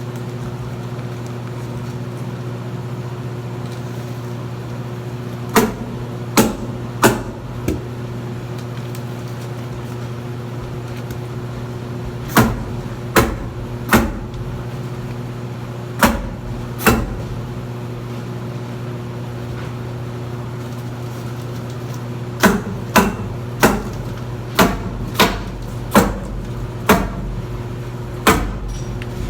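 Steady machine hum with sharp tool strikes in quick runs of two to four, each about 0.7 s apart: several runs in turn, the longest near the end.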